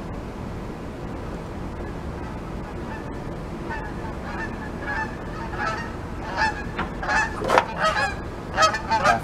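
Geese honking, a run of short repeated calls that starts about four seconds in and grows louder toward the end.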